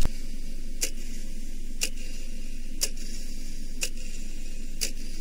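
A clock ticking steadily, one tick a second, five ticks over a steady background hum. It opens on the tail of a loud crash.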